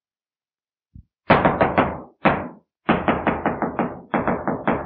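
A judge's gavel rapping repeatedly on the bench, in quick runs of several strikes each, starting about a second in.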